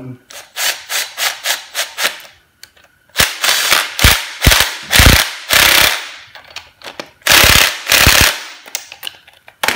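Cordless impact driver spinning the connecting-rod cap nuts down snug on a Ford flathead V8, run in bursts: a string of short pulses first, then longer runs of rapid hammering as the nuts seat.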